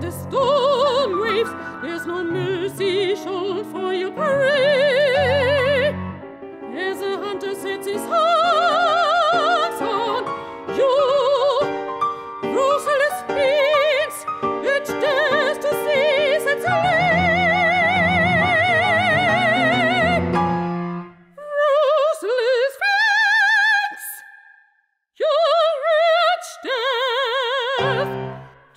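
Operatic soprano singing forcefully with a wide vibrato over piano accompaniment. About two-thirds through the piano drops away and the voice goes on in short, exclaimed phrases with a brief pause between them.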